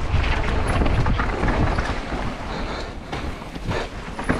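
Downhill mountain bike riding fast down a dirt trail: wind rushing over the microphone, tyres rolling over dirt and rocks, and the bike rattling and knocking over bumps. It gets somewhat quieter about halfway through.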